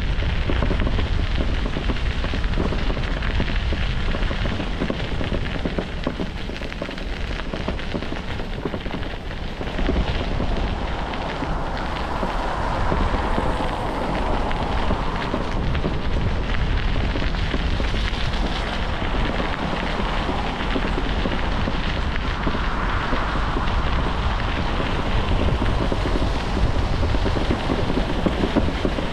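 Wind rumbling on the microphone of a camera riding along on a moving bicycle, mixed with a steady crackling hiss of tyres on the path.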